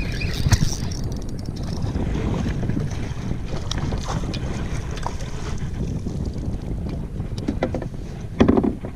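Wind buffeting the microphone on a kayak out on the water, a steady low rumble with a few light clicks and one short knock near the end.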